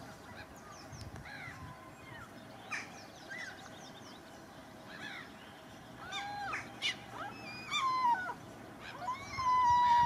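Common gull calling: quieter chirping calls at first, then louder, higher calls from about six seconds in, ending in a long drawn call near the end.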